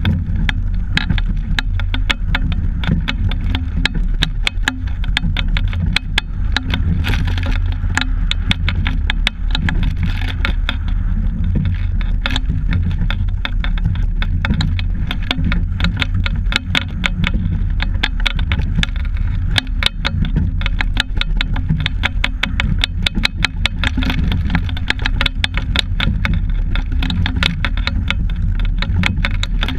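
Steady low rumble of wind buffeting the microphone of a camera mounted on a rowing double scull, with a fast, irregular rattle and clicking of the camera mount and boat hardware as the crew rows.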